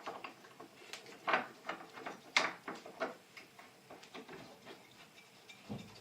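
Scattered light clicks and knocks from handling a wooden board against the miter saw's clamp and fittings, with no motor running.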